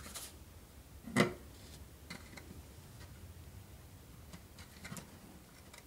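Faint, scattered small clicks and taps of a metal hand tool and fingers against model railroad flex track and a plastic joiner sleeper as the sleeper is flipped into place under a rail joiner, with the sharpest tick about a second in.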